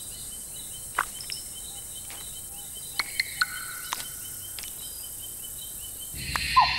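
Tropical forest ambience: a steady insect trill with a chirp pulsing about five times a second, broken by scattered sharp clicks. Near the end the sound grows louder and noisier, with a few short falling whistled calls.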